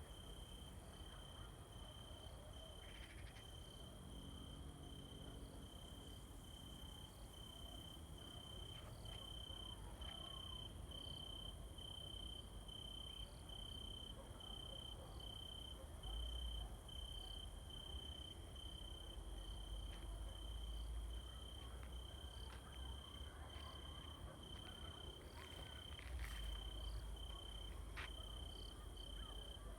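Crickets chirping: a high, evenly repeated chirp that keeps going steadily, with a few low rumbles coming and going in the middle and near the end.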